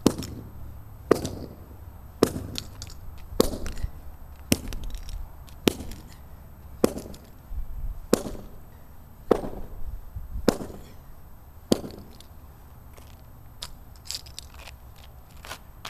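A sledgehammer repeatedly striking a Master Lock combination padlock: about eleven blows a little over a second apart, each a sharp hit with a short ring. About twelve seconds in the blows stop, leaving a few lighter clinks.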